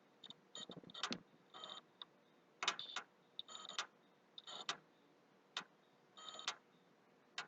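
PlayStation 3 console making irregular clicks and short crackles from near its hard drive, about a dozen spread unevenly. The owner takes this for a hardware fault in the console; he has already reformatted the hard drive and is unsure whether it is to blame.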